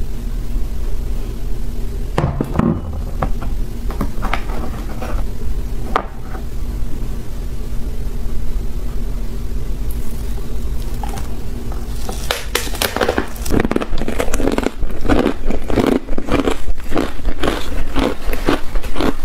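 Hard ice coated in matcha powder being bitten and chewed, with only a few scattered cracks at first and then, in the second half, a dense run of crisp crunches. A steady low hum lies under it throughout.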